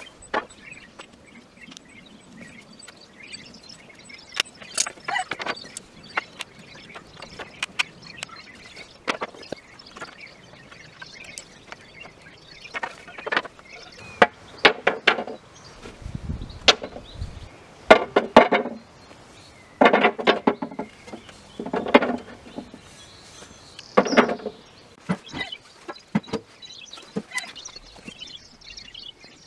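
Wooden slats knocking and clattering against each other as they are handled and set down, a string of sharp wooden knocks that comes in quick clusters through the second half, with birds chirping in the background.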